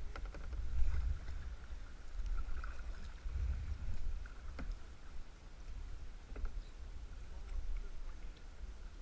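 Kayak being paddled on a river: paddle strokes in the water, over a low rumble of wind buffeting the microphone, with a couple of faint knocks in the middle.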